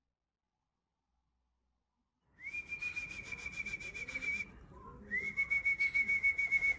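A person whistling two long, steady notes, each about two seconds long, to call a homing pigeon in to the loft as it returns from a race. A fast, rhythmic rasping runs under both whistles. The sound starts about two seconds in.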